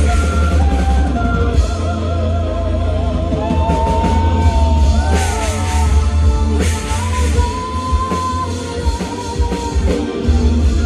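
Live symphonic power metal: a female lead singer holding long notes with wide vibrato over distorted electric guitars and drums, with a heavy, booming low end.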